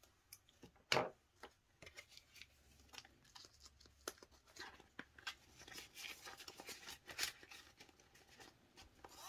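Clear plastic cash envelopes and Canadian polymer banknotes being handled, crinkling and rustling in short bursts. There is one sharp click about a second in.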